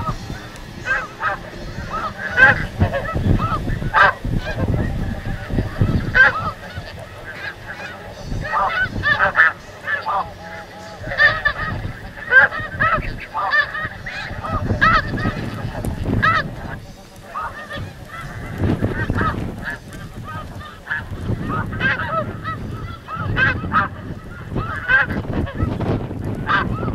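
A flock of snow geese calling, with many short, high yelps overlapping continuously. Gusty wind rumbles on the microphone underneath.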